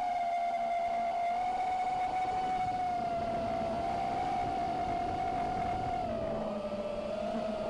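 Brushless motors and propellers of an Eachine Wizard X220 FPV racing quadcopter whining in flight. The pitch holds steady and high, then drops slightly about six seconds in as the throttle eases.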